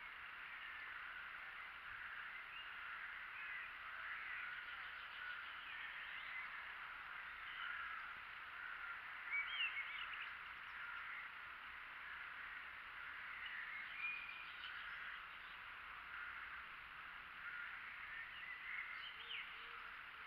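Birds chirping and calling in a steady chorus, with a few louder calls about nine and fourteen seconds in.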